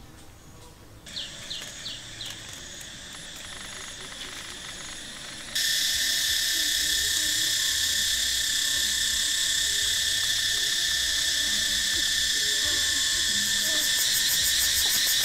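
Insect chorus in the forest: a steady high-pitched buzzing drone with a few short chirps, which turns abruptly much louder about five and a half seconds in.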